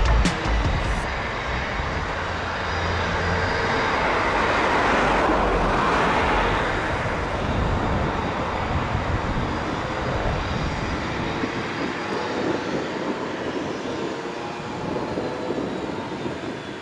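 Aircraft engine noise, a steady rush that swells to its loudest about five to six seconds in and then slowly fades.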